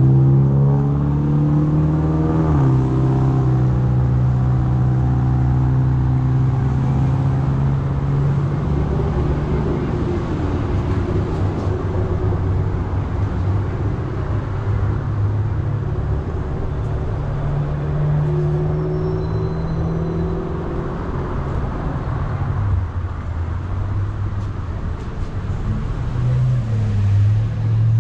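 An engine running steadily with a low hum whose pitch steps down a few seconds in, rises again past the middle and drops back later.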